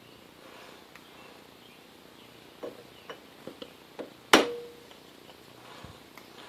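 A few light metallic clicks, then one sharp metal knock with a short ringing tone about four seconds in: hand tools working a lathe chuck while a gear blank is being centered.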